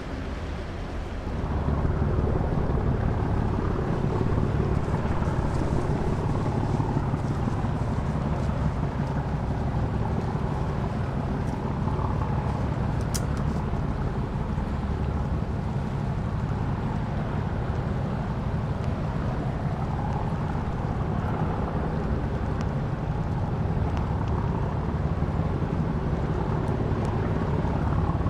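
Diesel engine of a sand-carrying river boat running steadily with a low hum, getting louder about a second and a half in and staying so.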